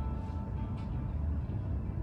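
Soft background music with a few held tones, over a steady low rumble.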